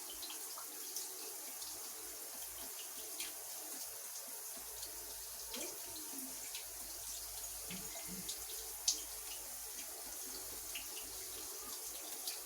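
Shower water running steadily, a continuous hiss with scattered drips and splashes.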